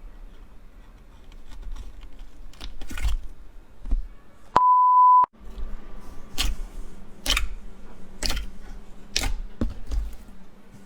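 Slime being pressed and squished, with soft crackling and sharp clicky pops roughly once a second. About halfway through, a single short, steady electronic beep cuts in.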